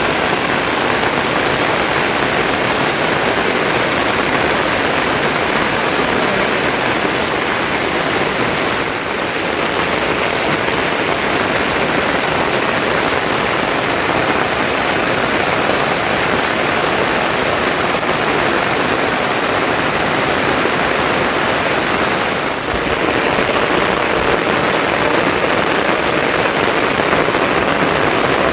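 Steady, even hiss of heavy rain falling, dipping briefly twice.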